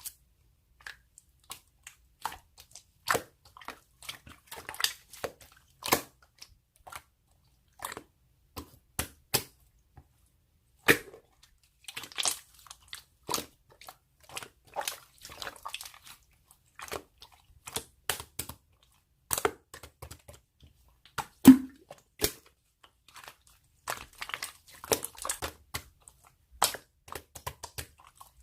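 Irregular sharp clicks and taps, a few a second with short gaps, one louder knock about two-thirds of the way through.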